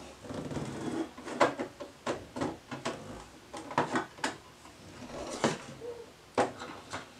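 Small plastic toys, pony figures and a toy vehicle, handled and set down on a wooden dresser top: a string of irregular taps, knocks and clatters.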